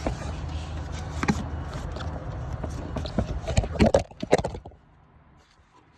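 Clicks, knocks and scrapes of a ratchet on the belt tensioner and the serpentine belt being worked over the alternator pulley, with a cluster of knocks near the end of the sound. A steady low hum runs underneath and stops about four and a half seconds in, leaving it much quieter.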